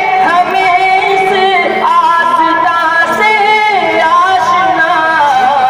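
A man singing an Urdu nazm (devotional poem) unaccompanied into a microphone over a public-address system, drawing out long held notes that waver and glide between pitches.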